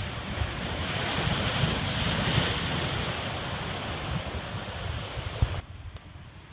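Pacific surf breaking and washing in foam over and between rocks, swelling loudest about two seconds in, with wind buffeting the microphone. The sound cuts off suddenly near the end, leaving a much quieter background.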